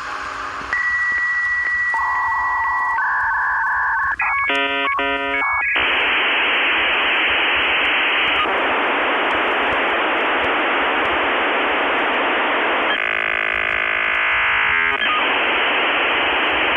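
Dial-up modem connecting over a telephone line: steady tones that change pitch every second or so, a short stretch of warbling chirps about four seconds in, then a long hiss of scrambled noise, with a buzzier stretch near the end.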